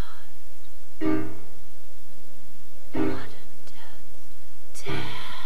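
Soundtrack music: slow piano chords, three struck about two seconds apart, each ringing out.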